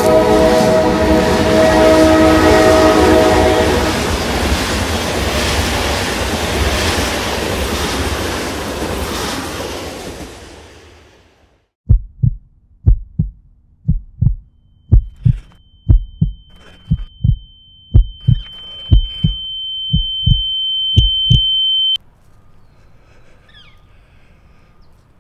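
A train horn sounding as a train rushes past, its rumble fading away over about ten seconds. After a moment of silence, a heartbeat thumps in double beats about once a second while a thin high ringing tone swells and cuts off suddenly, leaving faint outdoor quiet.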